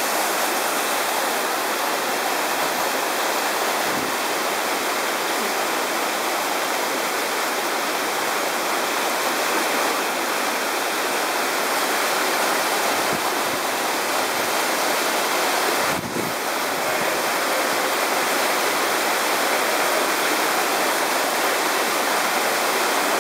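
Steady rushing of a mountain torrent and waterfall, an even wash of water noise.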